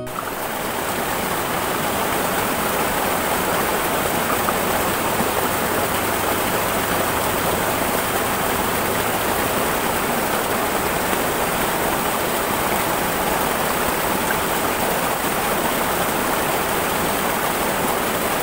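A shallow, rocky river rushing over stones in small rapids, a steady, even rush of water that fades in during the first second.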